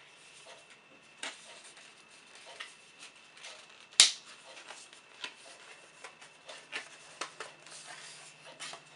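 Cardboard and paper packaging of an Apple iPad 2 box being handled: light rustling with scattered taps and clicks, and one sharp, loud click about four seconds in.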